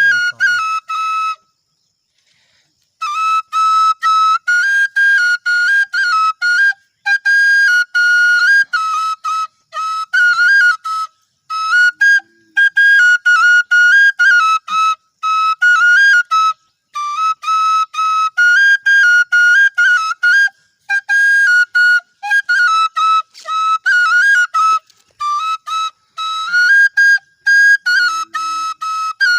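Bansuri (bamboo flute) playing a high melody in short phrases, the notes stepping up and down with brief breaks between phrases.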